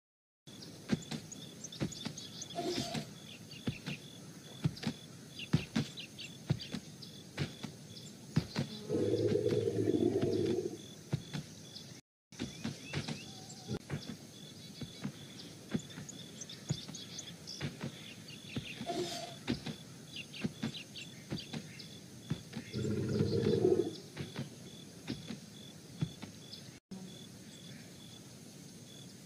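Outdoor wildlife ambience: many short bird chirps over a faint steady insect tone, with two louder, lower sounds, each a second or two long, about nine seconds in and again about twenty-three seconds in.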